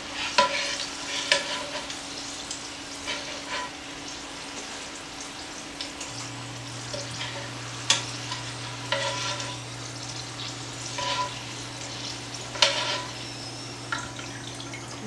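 A wire-mesh skimmer clinking and scraping against a pan of hot frying oil as deep-fried Yukon Gold potatoes are scooped out, with the oil sizzling. A steady low hum joins about six seconds in.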